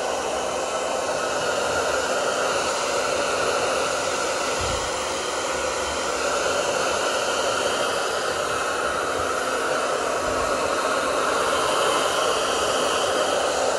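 BaBylissPRO handheld hair dryer running steadily, a continuous rush of blown air over a faint motor hum, shifting a little in tone as it is moved about.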